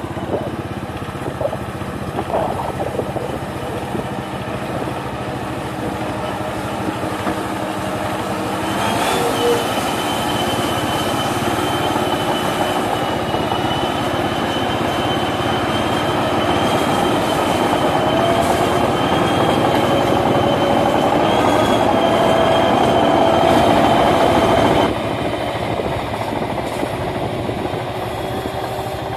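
Rice combine harvester's engine and running gear as it drives along a gravel farm track, a steady machine noise with a thin high whine. It grows louder through the middle, then drops suddenly a few seconds before the end.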